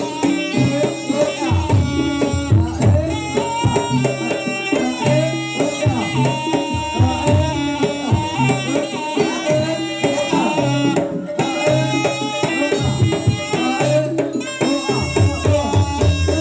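Jaranan music played live: hand drums beating a rhythm under a sustained melody from pitched instruments.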